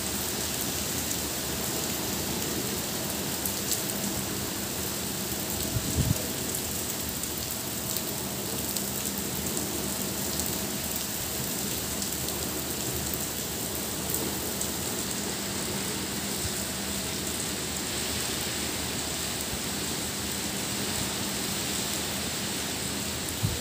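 Heavy rain falling steadily on garden foliage and standing water, a constant even hiss, with a brief low thump about six seconds in.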